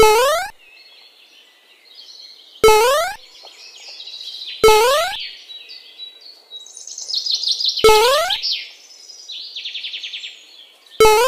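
Birdsong ambience of busy chirping and trilling, cut through five times by a loud, short rising swoop sound effect, a whistle-like pitch sliding upward in about half a second.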